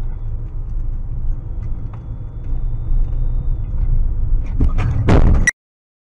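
Car cabin noise picked up by a dashcam microphone: a steady low road and engine rumble that grows louder as the car gathers speed, then a loud sudden burst of noise about five seconds in that cuts off abruptly.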